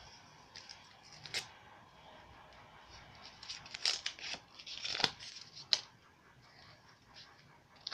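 Small toy wrapper being crinkled and torn open by hand, in short scattered crackles and rips, the loudest about five seconds in.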